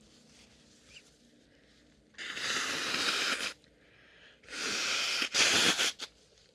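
A woman sneezing: two loud, breathy bursts about two seconds apart, the second ending in a sharper, louder peak.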